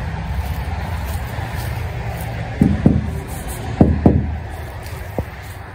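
Footsteps through dry grass and weeds, in two pairs of soft thumps about a third of a second apart, over a steady low rumble, with one more click near the end.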